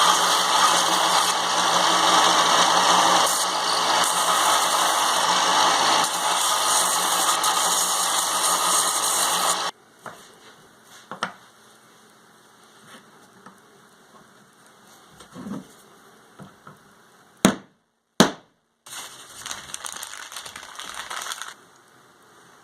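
A power tool running steadily for about ten seconds, stopping suddenly, followed by small handling knocks, two sharp clicks, and a short second run of the tool.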